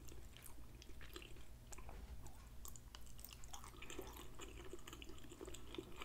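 A person chewing a mouthful of creamy mac and cheese close to the microphone: faint, with many small wet mouth clicks.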